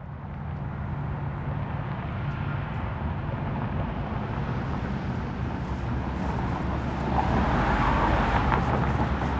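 Outdoor traffic ambience fading in: a steady low rumble of road vehicles with a low hum, growing a little louder near the end.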